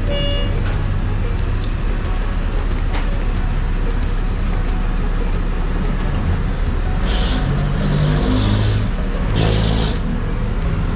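Steady rumble of vehicle engines and road traffic close by, with a few short hisses about seven to ten seconds in.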